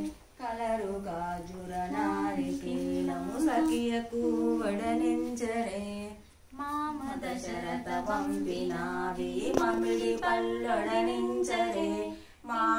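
Women singing a devotional aarti song without accompaniment. The song is sung in long held notes that move step by step, in two phrases with a short breath gap about halfway through.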